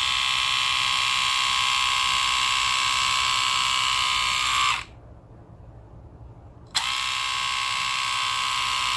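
Split-Ender Pro 2 split-end trimmer running with a steady motor whine as it is run along a section of hair. It is switched off about five seconds in and switched on again about two seconds later.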